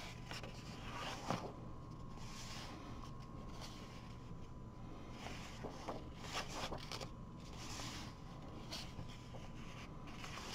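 Pages of a paperback coloring book turned by hand, one after another: faint, soft paper rustles and hands brushing across the pages, several times.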